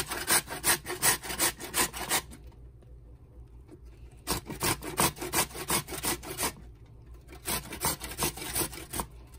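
Peeled chayote rubbed down a stainless steel box grater, quick rasping strokes about three a second. The strokes stop for about two seconds a couple of seconds in, then run again with a short break near the middle.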